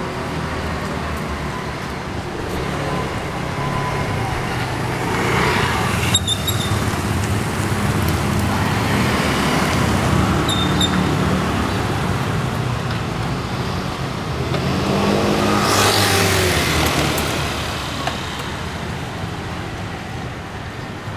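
Street traffic: a steady rumble of motor vehicles, with vehicles passing by close, once about five seconds in and more loudly about sixteen seconds in.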